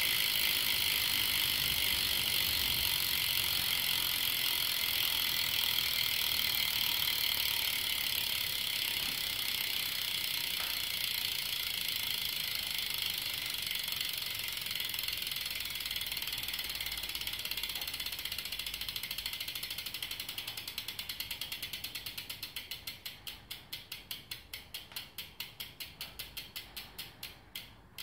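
Salt BMX rear hub freewheeling, its pawls ratcheting as the wheel spins on its own and slows down. The clicks first run together into a fast, even buzz, then spread out into separate ticks that get slower and fainter over the last several seconds as the wheel comes to rest.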